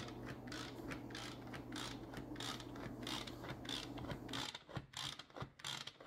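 A manual food processor chopping onions: quick, repeated ratcheting strokes of its hand-driven blades, about two to three a second, stopping about four and a half seconds in and followed by a few separate clicks.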